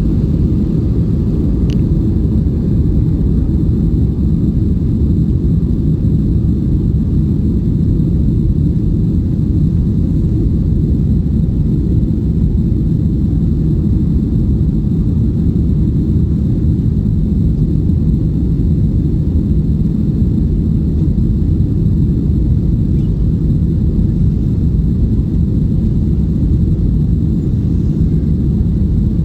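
Steady low rumble of an Airbus A320's engines and airflow heard inside the cabin, with a faint high whine and a single light click about two seconds in.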